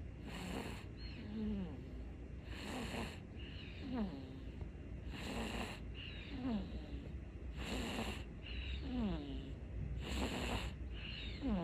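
Steady, rhythmic snoring, about one breath cycle every two and a half seconds. Each cycle alternates a hissing breath with a short tone that falls in pitch.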